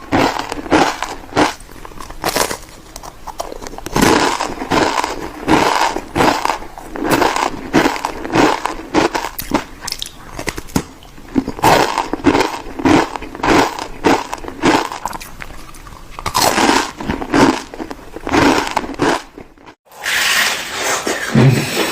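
Crunchy food being bitten and chewed close to the microphone: a quick, irregular series of crisp crunches, broken by a brief gap near the end.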